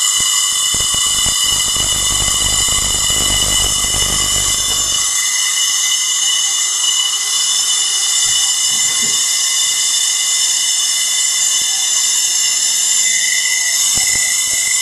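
Tesla hairpin circuit's spark gap, with electrodes about 9 mm apart inside a bottle, firing continuously under high voltage: a loud, steady, high-pitched buzzing hiss. For the first five seconds or so it also crackles with a low rumble, then it runs smoother.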